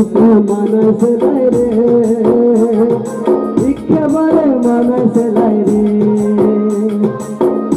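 Live band music: keyboards and harmonium carry a melody over a steady hand-percussion beat with a regular high shaker-like tick.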